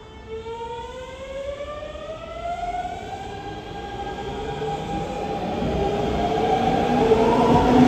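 Hanshin 5500 series electric train pulling away from the platform. Its traction motors whine in several tones that rise steadily in pitch as it gathers speed, and the wheel and running noise grows louder as it comes close.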